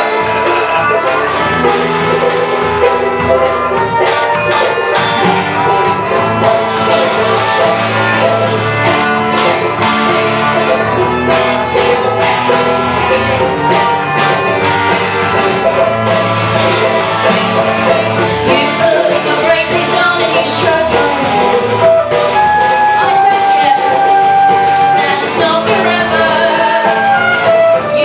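A live acoustic folk band playing, with women singing over acoustic guitar, banjo, fiddle and flute.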